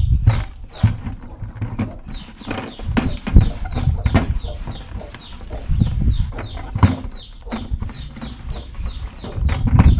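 Chickens in the yard, their chicks peeping in a quick run of short falling chirps, several a second. Knocks and handling noise from a bucket being cleaned sound beneath them.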